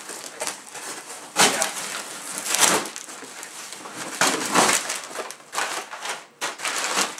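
Cardboard and packing material crackling and rustling as a box is unpacked by hand, in several short goes.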